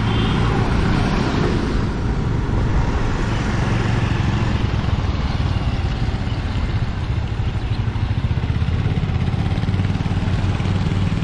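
Motor scooter being ridden at a steady speed on a wet road: a continuous hum of engine and road noise.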